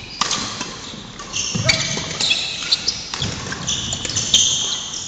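Badminton rally: rackets strike the shuttlecock several times with sharp hits, while court shoes squeak and pad on the wooden floor.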